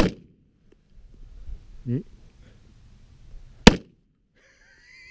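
Two AR-15 rifle shots about three and a half seconds apart, the second the louder.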